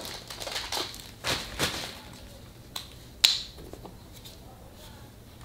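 A Canon EOS M50 mirrorless camera being handled, with soft plastic rustling, then two sharp clicks about half a second apart about three seconds in, as the battery is latched into its compartment and the door snaps shut.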